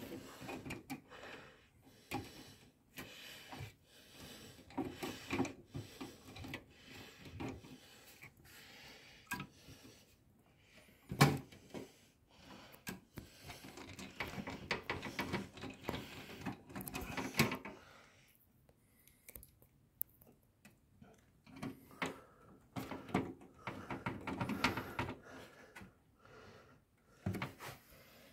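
Irregular clicks, knocks and rustling of hands working a graphics card and its power cables inside a PC case, plastic and metal parts tapping together, with one sharper knock about eleven seconds in.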